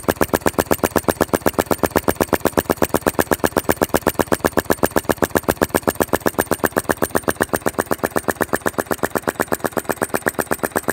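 Philip Duclos-design flame-sucker (vacuum) model engine running on its burner flame, with a steady rapid beat of about seven to eight sharp strokes a second.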